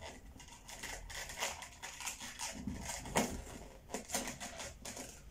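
Latex balloons, a twisted 260 pencil balloon and a round chrome balloon, being worked by hand and tied together: irregular squeaks, rubs and crackles of rubber on rubber, the loudest a little past the middle.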